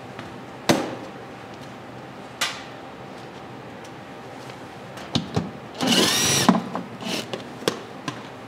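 Scattered sharp clicks and knocks of hand tools and plastic underbody fasteners being worked loose under a car, with a brief power-tool whir that spins up and winds down about six seconds in, the loudest sound here.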